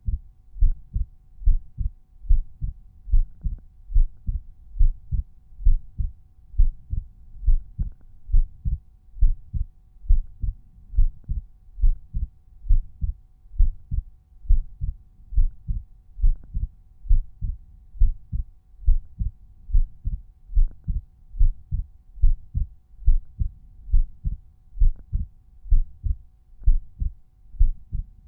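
Resting human heartbeat heard through a stethoscope at Erb's point: a regular lub-dub rhythm of low paired thumps, with a faint steady hum underneath.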